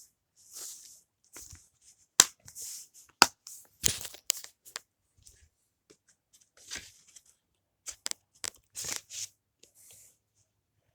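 Blu-ray packaging and a paper poster insert being handled: irregular rustling and crinkling broken by several sharp clicks, the loudest about two and three seconds in.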